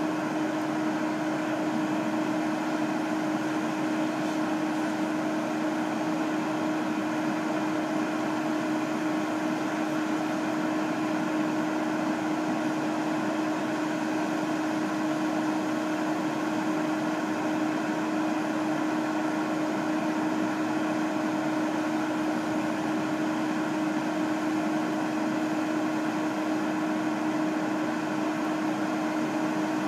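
Fire engine running steadily: a constant droning hum that holds one pitch and level throughout.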